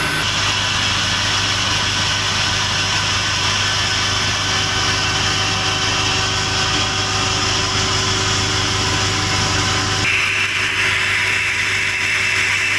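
Sawmill machinery running: a loud, steady mechanical drone with a low hum and a hiss. The sound shifts abruptly about ten seconds in.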